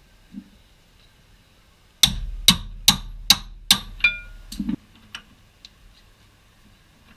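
A hammer striking metal six times in quick succession, about two blows a second, each with a short metallic ring, while working a seized rear suspension arm bushing loose. A few light taps follow.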